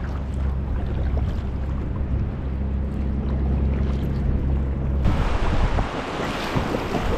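A low, steady rumble for about five seconds, then water rushing and splashing against an inflatable packraft as it runs through choppy water.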